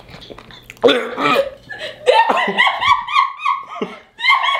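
A man's voice: a loud hoarse cry about a second in, then a fast run of short, high-pitched laughing sounds.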